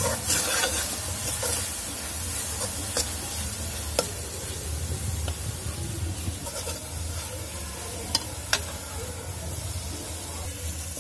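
Onion, tomato and ginger-garlic masala sizzling as it fries in oil in an aluminium kadai, stirred with a steel ladle that scrapes the pan and knocks against it with a sharp click now and then.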